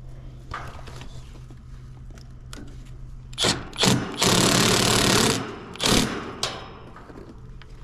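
Refrigerant hissing hard for about a second at the line-set service valve as it is opened, with metal clicks and knocks of the valve tools just before and after, over a low steady hum.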